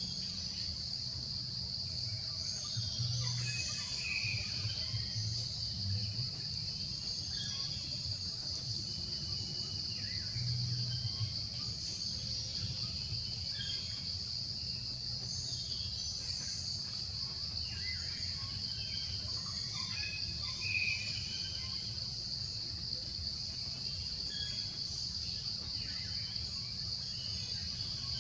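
Insects trilling in one unbroken high note, with short bird chirps scattered throughout and a steady low rumble underneath.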